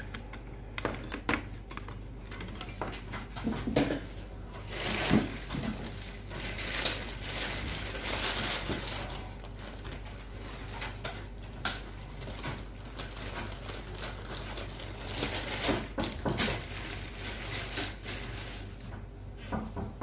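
Irregular clicks, knocks and rustling of computer hardware being handled on a motherboard, as a CPU heatsink is set in place, over a steady low hum.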